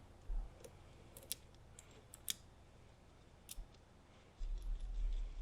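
Small metal hardware handled by hand: a few light, sharp clicks as the locking nuts go onto the compressor isolator kit's bolts, then low handling bumps near the end.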